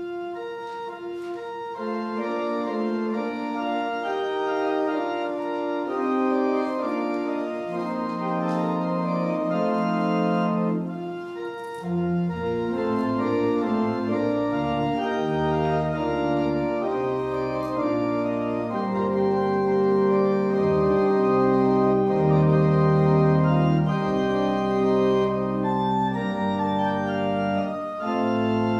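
Organ playing a slow piece of held chords, with deep bass notes coming in about twelve seconds in.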